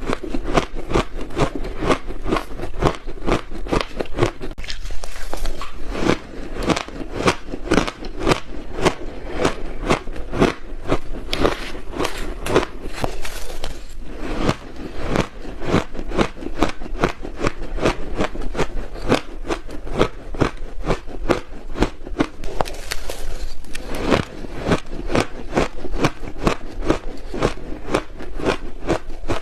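Close-up crunching of frozen ice being bitten and chewed in the mouth, a steady run of sharp crunches about three a second, with a few grainier, crumbly stretches in between.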